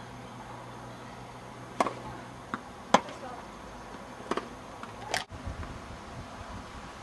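Tennis ball being hit in a rally: about five sharp knocks of racket on ball and ball on court, unevenly spaced.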